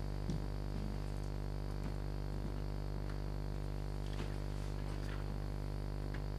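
Steady low electrical hum with many overtones, with a few faint, short clicks scattered through it.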